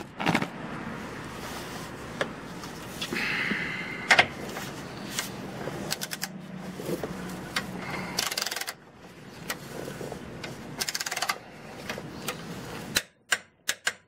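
Torque wrench being worked on subframe bolts: scattered metallic clicks and knocks, then a quick run of ratchet clicks near the end as the wrench is swung back.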